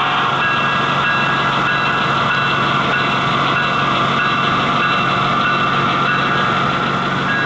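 Recorded diesel-locomotive engine sound from an HO-scale SD70M-2 model's onboard sound speaker, a steady hum as the locomotive shunts cars at low speed, with a thin high tone that comes and goes.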